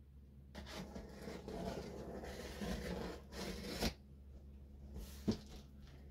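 Large cardboard shipping box being handled and shifted on a bed: cardboard rubbing and scraping for about three seconds, ending in a bump about four seconds in, then a single sharp tap a second later.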